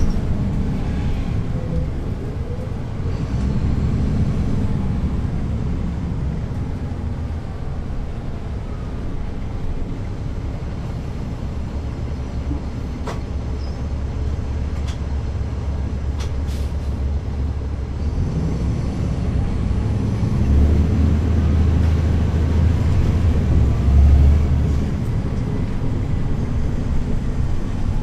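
Caterpillar C13 diesel engine of a NABI 40-SFW transit bus, heard from the back seats inside the bus while the bus is under way. The engine eases off in the middle, then pulls harder and grows louder about twenty seconds in, with a few sharp clicks midway.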